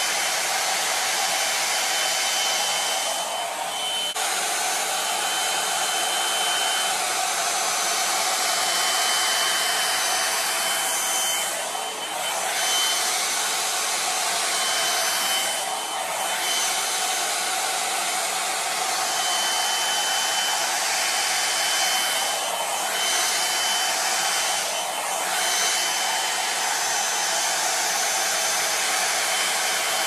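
Plavogue one-step hair dryer brush running continuously as it blows hot air through the hair, a steady blowing noise with a thin high whine; the level dips briefly a few times.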